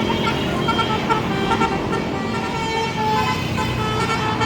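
Bus 'basuri' musical horn playing a quick tune of short notes at changing pitches, over steady engine and road noise.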